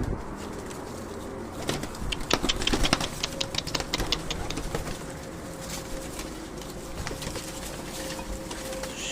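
Pigeons cooing, with a quick run of sharp clicks about two seconds in.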